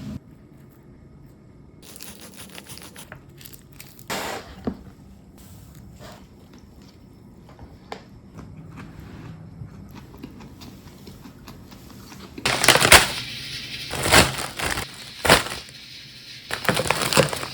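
Kitchen food-preparation sounds: quiet handling clicks and rustles, then several loud, harsh crackling bursts over the last five seconds.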